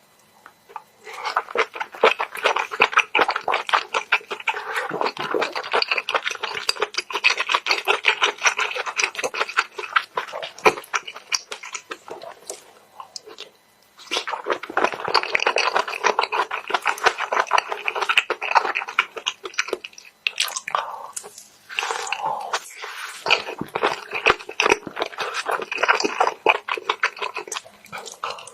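Close-miked eating of mixed seafood: wet chewing and crackling crunches in dense runs of small clicks. A long stretch is followed by a short pause about halfway through, then chewing resumes in shorter bursts.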